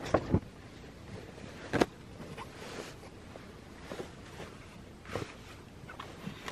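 A blanket being handled and spread over a padded bed platform in a pickup's rear cab: soft fabric rustling broken by a few sharp knocks and bumps, the loudest two right at the start and another about two seconds in.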